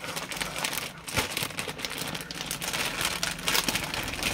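Clear plastic garment bag crinkling and rustling as it is handled, with a single sharp knock about a second in.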